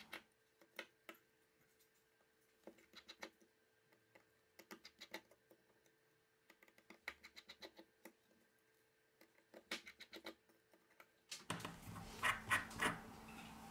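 Faint, scattered clicks and taps of tweezers and a precision screwdriver on the opened insides of a Xiaomi Redmi 6A smartphone, in small clusters of a few clicks. The clicks grow louder near the end.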